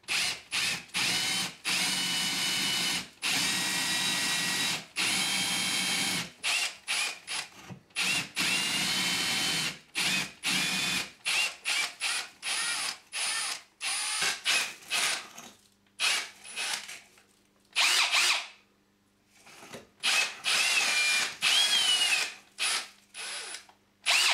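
AEG cordless drill boring a fixing hole into a solid wall, run in many short stop-start bursts, each with a whine that rises as the motor spins up. There is a short pause about three-quarters of the way through before the drilling resumes.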